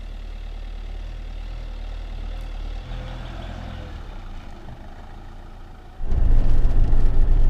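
Camper van engine running at idle, a steady low hum. About six seconds in it turns suddenly much louder, a heavy low rumble.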